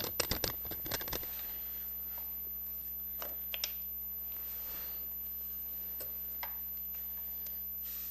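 Light clicks and taps of a new motorcycle drive chain being handled near the front sprocket, mostly in the first second with a couple more about three seconds in, over a steady low hum.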